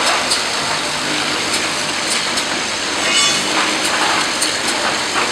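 Automatic glass-bottle filling and capping machine running: a steady mechanical clatter with frequent light clicks, over a steady high whine, and a short ringing clink about three seconds in.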